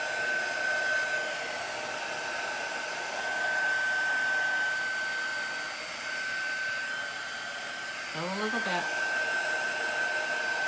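Handheld craft heat tool blowing steadily with a high whine, drying a freshly inked layer of chalk ink so the next colour won't bleed.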